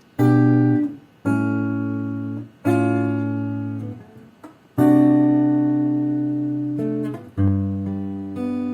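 Acoustic guitar playing chords: five chords struck one after another, each left to ring for about one to two seconds and then damped, the longest about halfway through.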